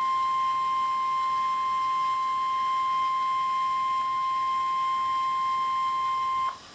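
NOAA Weather Radio warning alarm tone: one steady, high-pitched tone held for about six and a half seconds, then cut off sharply. It is the attention signal announcing that a severe thunderstorm warning is about to be read.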